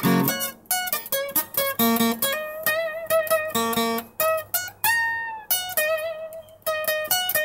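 Intro music: a plucked guitar picking out single notes, each ringing briefly before the next.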